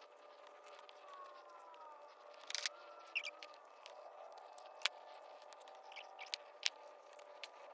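Scattered light clicks and taps of hands working stiff heavy-gauge wire ends into a plastic twist-lock plug, the sharpest a few seconds in. A few faint whistling glides sound in the background.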